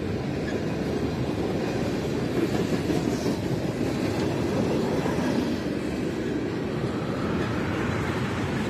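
Freight train cars rolling past: steel wheels on rail making a steady rolling noise as tank cars and covered hoppers go by.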